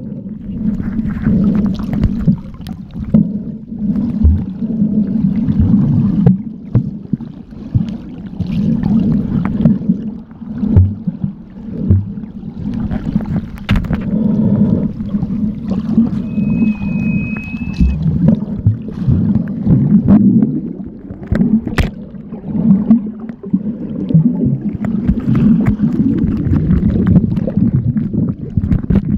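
Muffled underwater sound of water surging and sloshing against a submerged camera held by a snorkeler, swelling and fading every second or two, with occasional small knocks.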